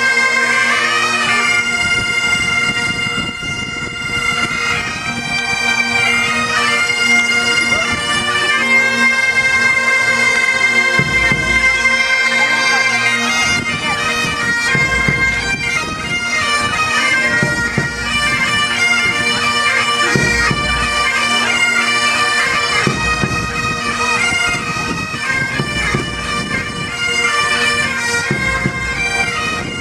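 Pipe band playing: Highland bagpipes carry a tune over their steady drones, with snare drums beating along. The deep bass drum comes in about eleven seconds in.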